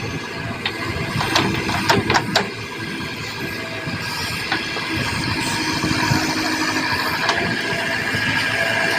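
Heavy diesel earthmoving machinery running steadily, with a few sharp metallic clanks in the first couple of seconds and another near the end.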